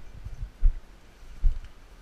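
Footsteps of a walking hunter picked up as dull low thumps through a body- or gun-mounted camera: two evenly paced steps, less than a second apart, over a faint low rumble.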